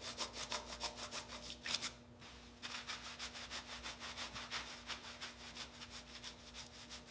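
Hand sanding: quick back-and-forth rubbing strokes, about five a second, with a short pause about two seconds in. A faint steady hum runs underneath.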